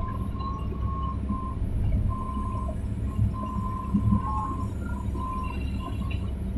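Hydraulic excavator working: a steady low engine drone with a few soft knocks, over a thin high whine that breaks on and off.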